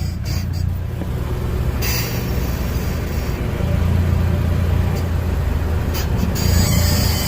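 Car suspension noise while moving: a steady low rumble, with stretches of harsh, high-pitched noise about two seconds in and again near the end. The noise is from a dry upper ball joint whose cracked rubber boot has let the grease out.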